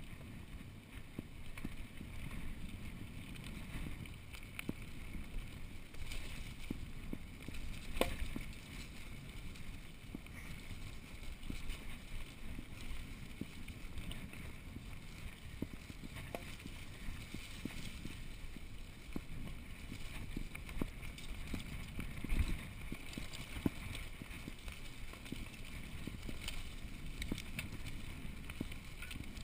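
Mountain bike ridden over a dirt trail: a steady rumble of knobby tyres on the ground, with the frame and parts rattling and many small clicks and knocks. Louder knocks come about 8 seconds in and again about 22 seconds in.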